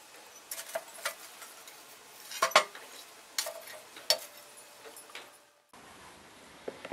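Steel tomahawk head and tongs clinking against chunks of charcoal as the head is laid into the forge coals: a handful of light, separate clinks, some with a faint metallic ring, the loudest about two and a half seconds in. The sound cuts off abruptly about a second before the end.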